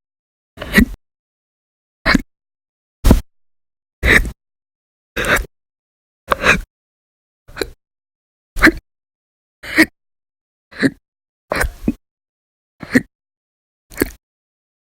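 A woman's violent, very loud hiccups, a short sharp one roughly every second, about thirteen in a row. The hiccups are persistent, part of a bout that goes on for hours.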